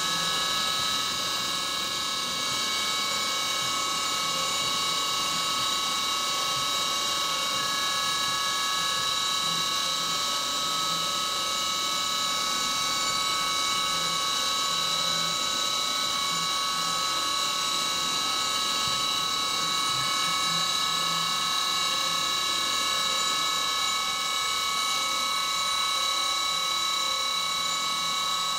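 CNC milling machine cutting a steel plate with a small end mill under flood coolant: a steady spindle whine of several held tones over a constant hiss of cutting and coolant spray.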